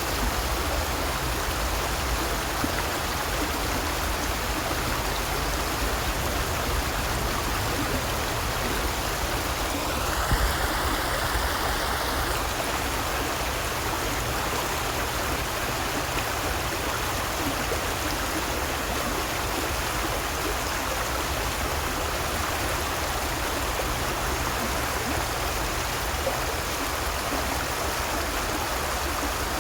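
A stream running steadily, its water a constant even rush. A brief high-pitched sound stands out over it about a third of the way through.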